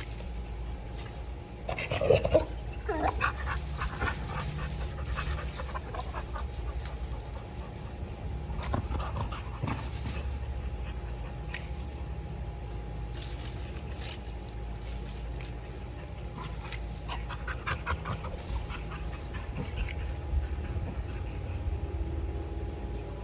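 A dog whimpering, in short pitched whines that bend up and down, loudest about two seconds in and coming again a few times.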